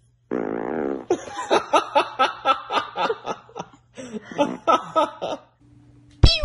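A baby laughing in quick repeated bursts, about four a second, with a pause in the middle. A sharp knock comes near the end and is the loudest moment.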